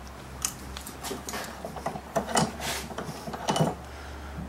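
Steel rod scraping and knocking against the jaws of a bench vise as it is bent by hand and pulled free: an irregular run of sharp clicks and scrapes, loudest in the second half.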